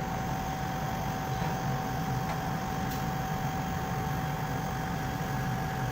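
Large laser cutting and engraving machine running while it cuts acrylic: a steady machine hum with a constant high whine over it, and a faint click about three seconds in.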